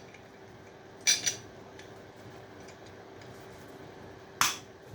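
Small metal clinks of scrap pieces being handled: two sharp clinks about a second in and a louder one near the end, over a faint steady hum.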